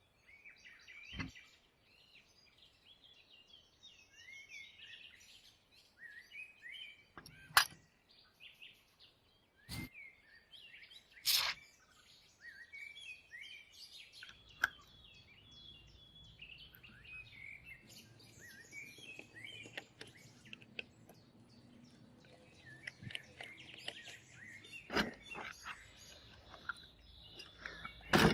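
Small birds chirping and twittering steadily in the background, broken by about six sharp clicks or knocks, the loudest about a third of the way in.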